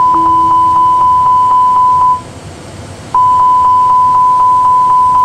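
Airbus A320 cockpit warning alarm sounding after a dual engine failure: a loud, high, steady beep pulsing about four times a second, with a lower tone under it in the first second. It breaks off for about a second in the middle and then starts again.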